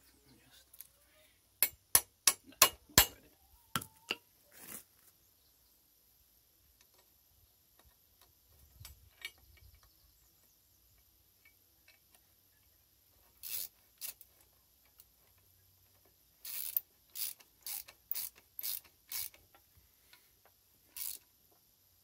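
Hand ratchet spanner with a socket clicking as a bolt is run into a threaded hole: a quick run of about five clicks about two seconds in, a few scattered clicks, then another run of about six from about sixteen seconds in.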